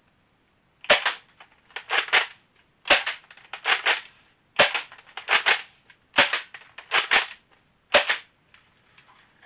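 Nerf Rival Jupiter bolt-action foam-ball blaster fired five times in quick succession, about one shot every one and a half seconds. A pair of plastic clacks comes between shots as the bolt is racked back and forward. The bolt cycles smoothly and without jamming now that its ratchet piece has been removed.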